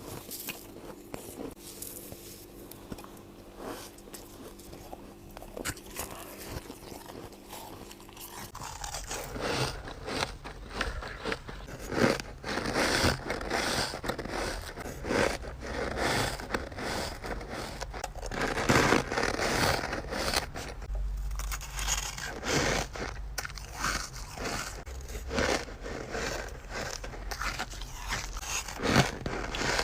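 Close-up bites and crunching of freezer frost, packed snowy ice crackling and squeaking between the teeth. The first part is quieter over a steady low hum; about nine seconds in, the crunching becomes louder and denser.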